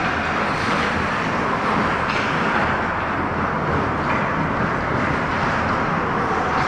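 Ice hockey rink sound during play: a steady rushing noise, with a few faint short scrapes or knocks about two and four seconds in.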